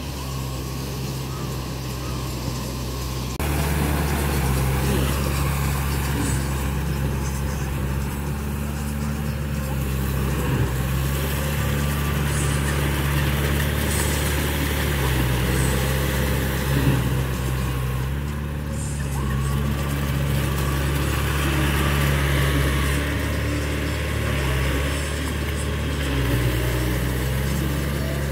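Yanmar tractor's diesel engine running steadily under load while its rear rotary tiller churns wet paddy mud. It gets louder and closer about three and a half seconds in.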